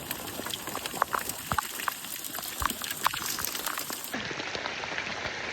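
Hail and rain falling: many small, sharp ticks of hailstones striking, scattered irregularly over a steady hiss of rain.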